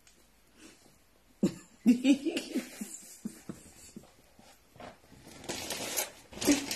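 A woman laughing in short, breathy, cough-like bursts starting about a second and a half in, then a rustling hiss near the end.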